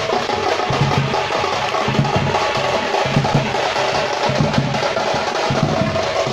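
Thappattai (parai) frame drums beaten with sticks together with a large barrel drum, a Tamil folk drum ensemble playing a fast, continuous rhythm of dense strokes.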